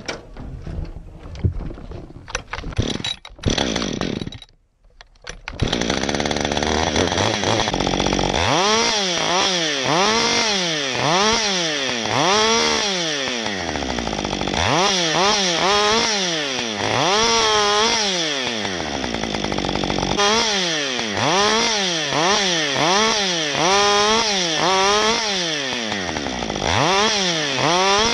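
Husqvarna 55 two-stroke chainsaw, heard after a few seconds of knocking and clatter. The engine comes in about six seconds in, then revs up and down over and over, about once a second, as it trims small tree branches.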